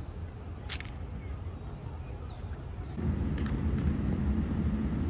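Outdoor ambience: a low background rumble with a few short bird chirps and one sharp click. About three seconds in it gives way to a louder, steady low rumble.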